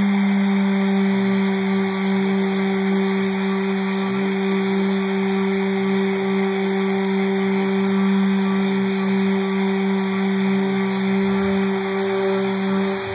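Festool random-orbit sander fitted with a wool buffing pad, running steadily against a flat workpiece with an even motor hum.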